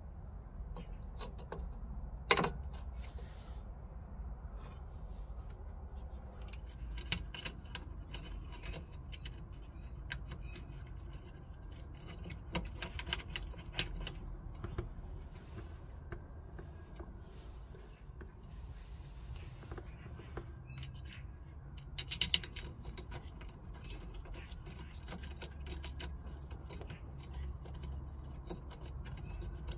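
Scattered small metallic clicks and clinks as a new rear wheel brake cylinder is fitted to a drum-brake backing plate and the steel brake pipe union is threaded into it. There is a sharper click about two seconds in and a quick cluster of clicks about twenty-two seconds in, over a low steady background rumble.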